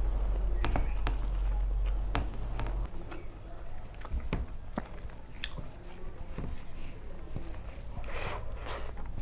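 Close-miked eating sounds: chewing and mouth clicks while eating rice and curry by hand, with two louder crunches near the end. A steady low hum underneath stops about three seconds in.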